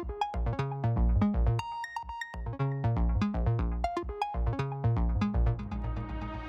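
Electronic background music with a steady drum-machine beat and synthesizer notes.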